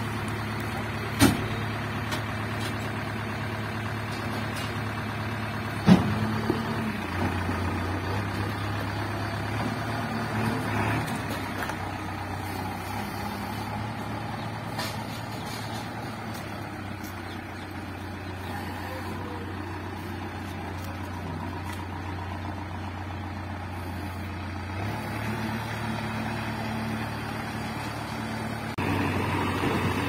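JCB 3DX backhoe loader's diesel engine running steadily, with two sharp clunks, one about a second in and one about six seconds in. The engine note drops a little about seven seconds in, rises again near the end, and the sound grows louder in the last second or so.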